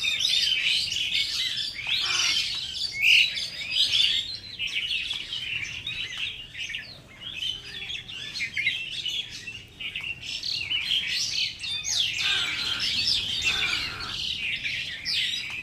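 Many small birds chirping at once, a dense, continuous chatter of short overlapping calls.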